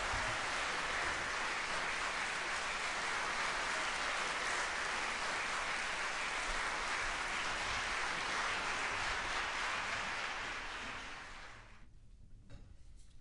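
Concert-hall audience applauding steadily, then dying away over a couple of seconds near the end.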